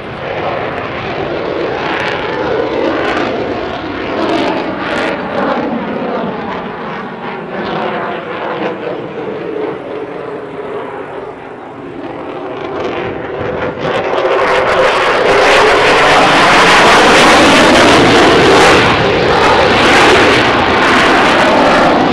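F-16 fighter jet in flight: the continuous rushing noise of its single turbofan engine, with a slowly wavering, sweeping tone. It grows much louder about fourteen seconds in and stays loud.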